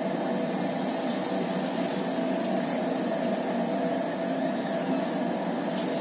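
Arrowroot-coated raw potato strips sizzling and bubbling steadily in hot oil in a large karahi as they are added by hand, the first half-fry of double-fried french fries.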